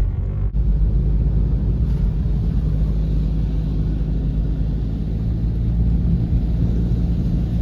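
Car driving on a flooded road, heard from inside the cabin: a steady low engine and road rumble, joined about half a second in by an even hiss of tyres on water.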